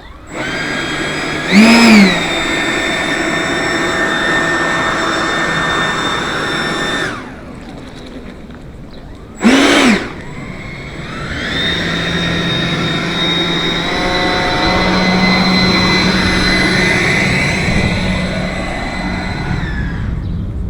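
Electric ducted-fan motor of a 3D-printed L-39 model jet whining steadily while taxiing, with two short, loud throttle blips, about 2 s in and near 10 s. The whine cuts out at about 7 s and spools up again at about 11 s.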